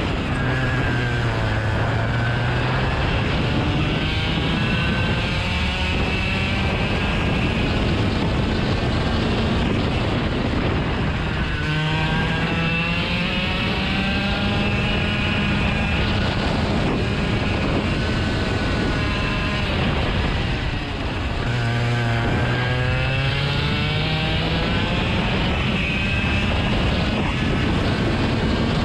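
An engine running under a constant rushing noise, its pitch climbing three times as it speeds up: near the start, about twelve seconds in, and about twenty-one seconds in.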